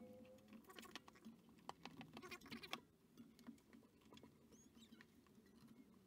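Faint rubbing, squeaking and clicking as a Schwalbe Magic Mary mountain bike tyre's bead is worked onto the rim by hand, busiest in the first half.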